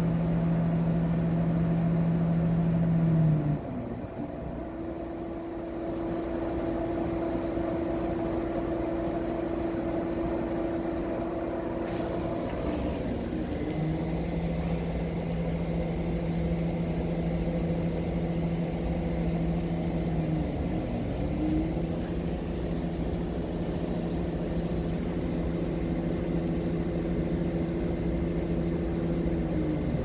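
Laser engraver running a job: its motors driving the laser head give steady whining tones. About four times the pitch dips and swings to a new note as the head slows, turns and speeds up again. A steady rushing noise runs underneath.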